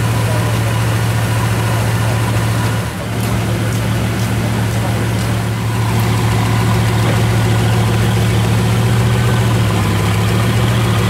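Bugatti Veyron 16.4 Grand Sport's quad-turbocharged W16 engine idling steadily through its exhaust, briefly quieter about three seconds in.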